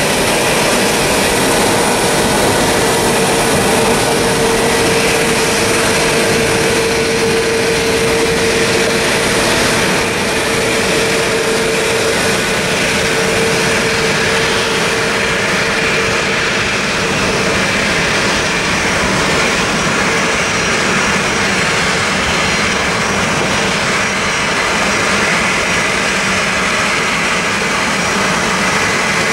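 Airbus A321neo's CFM LEAP-1A jet engines running at low taxi thrust, a steady jet noise with a hum that is strongest in the first half.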